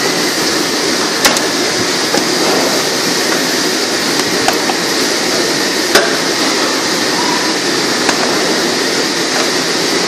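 A long metal ladle stirring rice in a large aluminium cooking pot, knocking sharply against the pot a few times, over a steady loud rushing noise.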